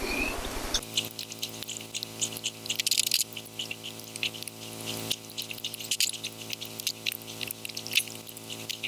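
Light metallic clicks and scrapes of tools working split pins out of a Morris Minor handbrake's central bar, over a steady background of sustained tones.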